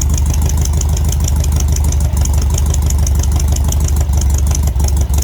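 Air-cooled VW flat-four engine of a VW trike idling steadily with a rapid, even beat, freshly tuned with a rebuilt carburetor, new plugs, cap, rotor and wires and set timing.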